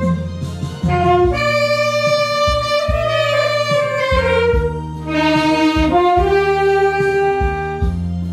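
Saxophone playing a slow melody of long held notes with slides between them, over a backing track with bass and a steady drum beat.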